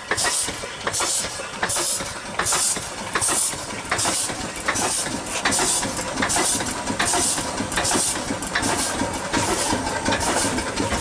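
Two small antique stationary steam engines running together off one boiler: rhythmic chuffs of exhaust steam, about one and a half a second, over a steady steam hiss, with light mechanical clicking from the running gear.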